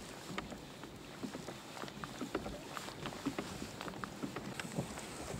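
Small waves lapping and slapping against a Hobie Compass kayak's polyethylene hull as scattered, irregular light ticks over a faint hiss of wind and water.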